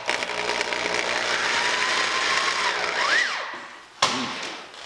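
Corded electric drill running steadily as it bores a hole through the car's roof sheet metal, then slowing and stopping about three seconds in. A single sharp click near the end.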